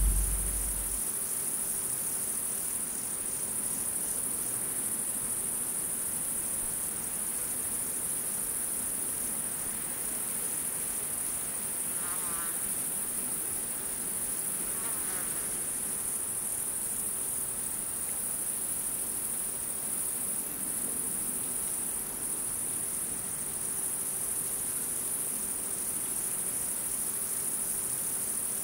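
Crickets chirping steadily at night, a continuous high-pitched trill.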